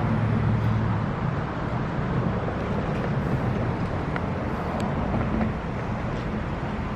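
Steady running of a vehicle engine with road noise: a low hum over an even hiss.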